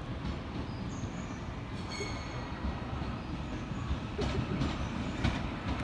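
Class 331 electric multiple unit rolling slowly into a station: a low rumble of wheels on track, with a faint high-pitched wheel squeal about two seconds in and a few clicks near the end.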